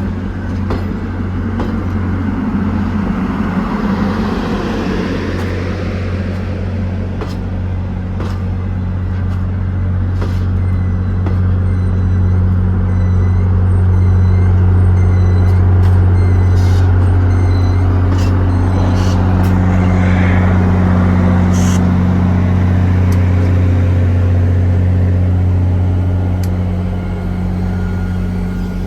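Grand Canyon Railway train heard on board: a steady low hum under a spread of running noise, with scattered light clicks and rattles.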